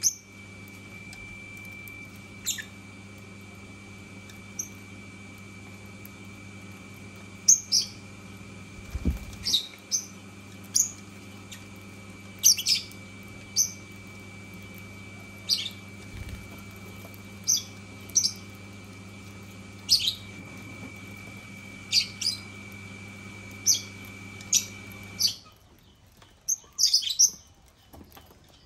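Lovebirds giving short, high, sharp chirps, one or two at a time, with a quick flurry near the end. A steady background hum with a thin high whine runs underneath and stops about 25 seconds in.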